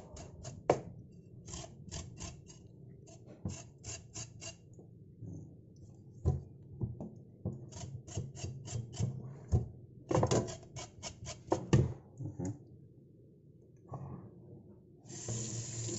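A kitchen knife scraping the skin of a grilled pork leg in a stainless-steel sink, shaving off hair and charred bits: quick runs of rasping strokes with short pauses between them. Near the end a tap starts running.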